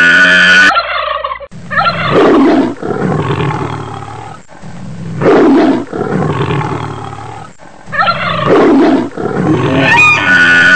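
Animal sound effects: deep big-cat roars, one after another about every three seconds, with a high trumpeting call from an elephant at the start and again near the end.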